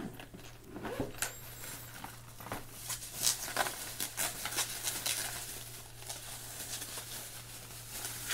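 Plastic bubble wrap crinkling and rustling as it is handled and pulled off an object, with a string of short sharp crackles.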